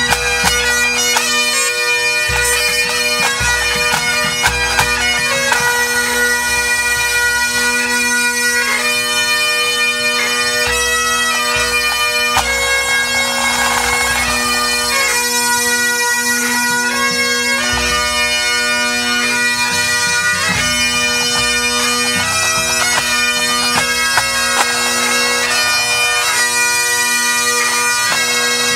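A pipe band's Great Highland bagpipes playing a tune in unison over their steady drones, on final tuning before competing.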